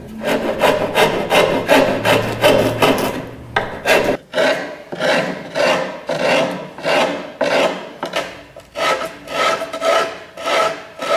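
Hand file rasping back and forth along the plywood edge of a boat-building form, fairing the bevel so the planking strips will lie flat. Quick, close strokes for the first few seconds, then an even rhythm of about two strokes a second.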